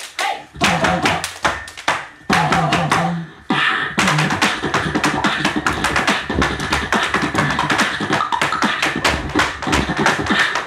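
Beatboxing through a microphone together with tap dancing on a wooden tap board. After a short break about three and a half seconds in, the taps and beats run on as a fast, dense stream.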